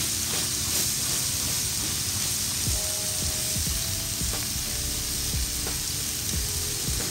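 Buttered shrimp skewers sizzling steadily on a charcoal grill.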